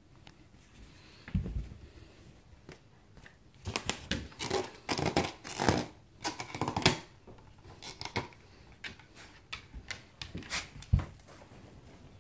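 German shepherd mouthing a latex balloon: scratchy rubbing and scraping of teeth on the rubber in bunches of bursts, thickest in the middle, with a couple of low thumps as the balloon bumps about.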